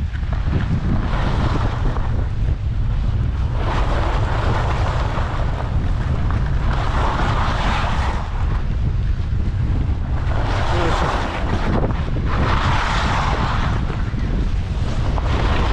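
Heavy wind buffeting on the microphone of a moving skier. Over it, a hissing swish of skis scraping across snow swells and fades about every two to three seconds.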